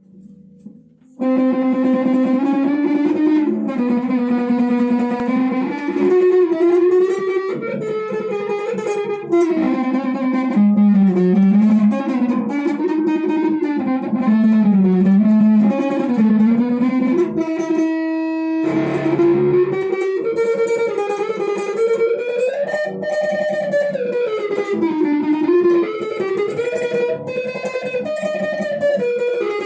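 Electric guitar playing a single-note improvised lead melody, with long held notes that bend and slide in pitch. It starts about a second in and pauses briefly a little past halfway.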